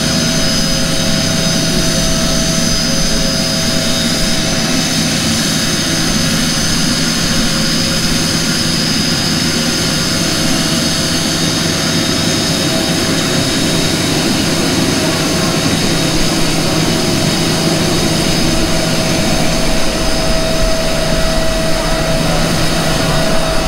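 Dassault Falcon 900 trijet's turbofan engines running as it taxis: a steady jet whine over a low rumble, growing a little louder near the end as the engine exhausts turn toward the listener.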